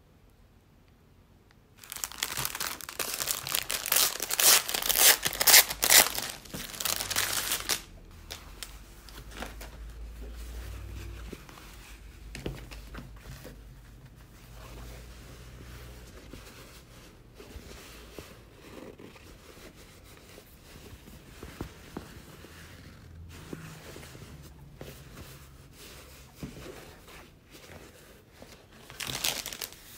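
Clear plastic packaging crinkling loudly for about six seconds as a cotton tote bag is unwrapped, starting about two seconds in. Then quieter rustling of the cotton canvas bag being smoothed and handled, with another short crinkle of plastic near the end.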